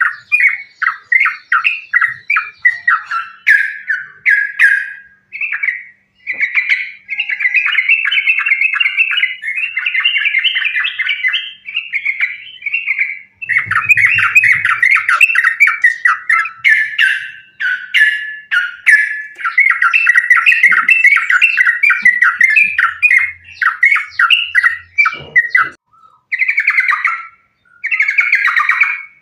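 Yellow-vented bulbul (trucukan) singing a loud, fast chattering song, note after note in long unbroken strings with only a few short breaks. This is the rapid 'fighting' song used as a lure to set other trucukan singing.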